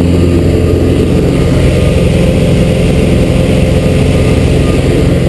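Steady drone of a small jump plane's piston engine and propeller, heard loud from inside the cabin in flight.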